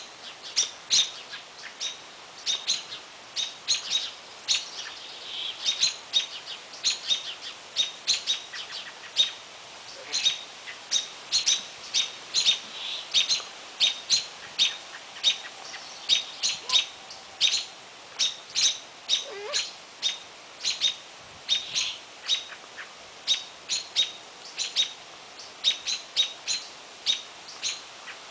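American robins giving sharp, repeated alarm calls, about two a second, agitated by a great horned owl nearby.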